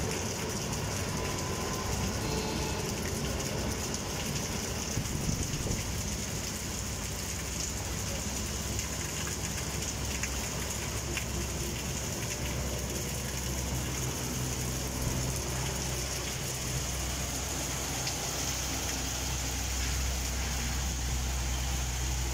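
Heavy rain falling on wet paving and a street, a steady hiss. A low rumble thickens underneath from about halfway through.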